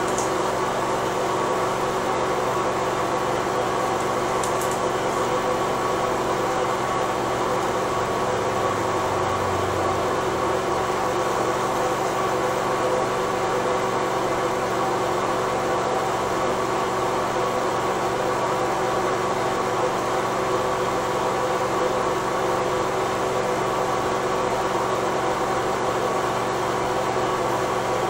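Steady mechanical hum holding several fixed tones over an even hiss, unchanging throughout.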